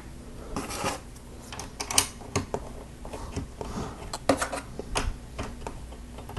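Plastic LEGO bricks clicking and clattering as pieces are handled and pressed together, in irregular clicks with some rustling between them.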